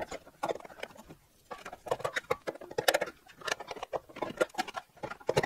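Jaguar XK8 rear exhaust silencer and pipe knocking and rattling against the car's underbody and lift as they are wiggled free by hand: a run of irregular metal knocks and clicks.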